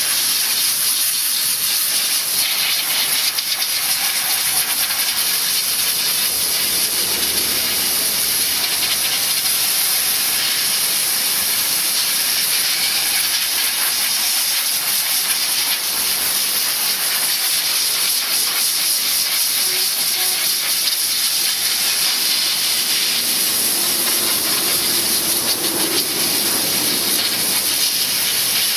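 A jet of steam hissing steadily from a commercial steam cleaner's hand gun as it is sprayed over a car engine bay.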